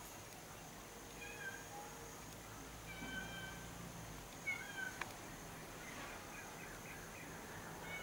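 Faint short calls from an animal, each with a clear pitch, heard three times in the first five seconds and more faintly later, over a steady thin high tone.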